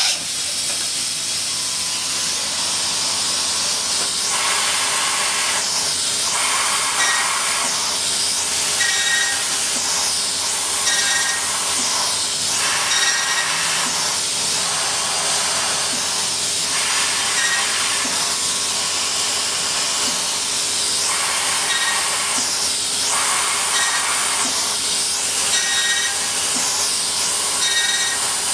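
Akira Seiki SR3 CNC vertical mill machining a hole pattern (spot drilling, drilling and mill-boring): a steady hiss runs throughout, with a cutting sound that swells and fades in a regular rhythm about every two seconds as the tool works one hole after another.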